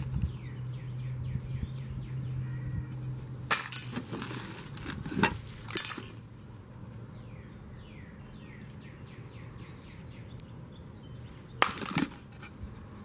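Loose rusty hardware in a cardboard box clinking and rattling as hands rummage through it, with a few sharp clinks of metal and glass parts, grouped in the middle and once more near the end.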